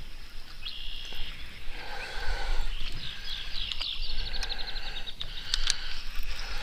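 Birds singing, with short high calls and, about halfway through, a rapid trill of repeated falling chirps, over a low rumble.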